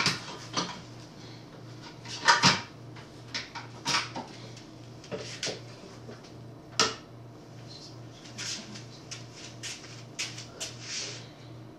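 Clacks and knocks of juicer parts being handled and fitted as the grinding attachment is changed, the loudest about two and a half seconds in, with softer ones later. A faint low hum pulses steadily underneath.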